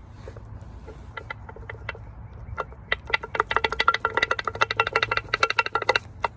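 Metal striking metal on a car's suspension parts: a few separate ringing hits, then from about three seconds in a fast, dense run of strikes, each ringing at the same pitch, which stops suddenly about a second before the end.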